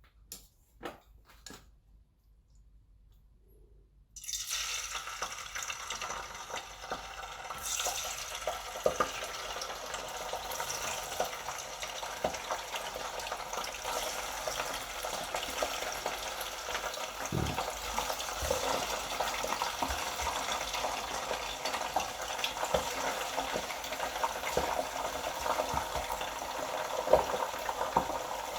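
A few faint clicks, then about four seconds in a sudden onset of deep-frying sizzle in hot oil, which goes on as a dense, steady crackling sizzle.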